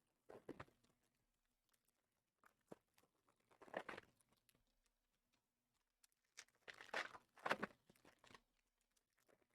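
Faint crinkling and tearing of trading-card pack wrappers being opened, in a few short bursts, the busiest stretch in the last third.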